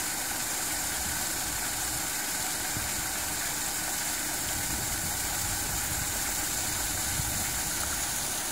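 Paddlewheel aerator on a shrimp pond running steadily: its paddle wheels churn and splash the water over a steady mechanical hum from the drive.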